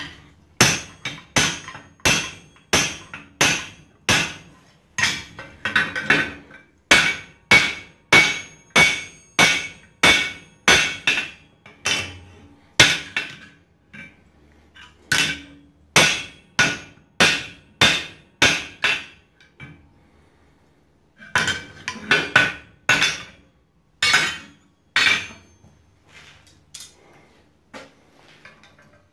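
Blacksmith's hand hammer striking tooling held against a red-hot 4140 steel axe head on a steel swage block. The blows come steadily, a little under two a second, each with a metallic ring. There is a short break about halfway, another about two-thirds in, and lighter taps near the end.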